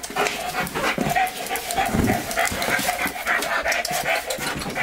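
German Shepherd-type police dog panting and sniffing rapidly as it searches, with a thin steady tone underneath.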